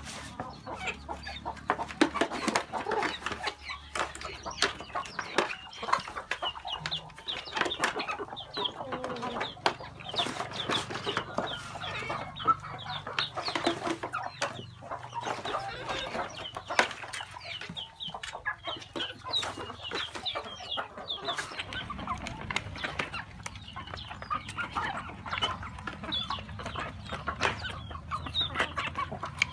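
A flock of hens and roosters clucking and calling over one another while feeding, with many quick sharp taps of beaks pecking at grain in a plastic feed tray.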